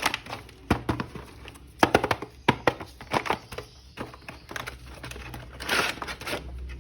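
Hands handling plastic toy packaging and an action figure: irregular clicks, taps and knocks with some crinkling, and a longer rustle just before the end.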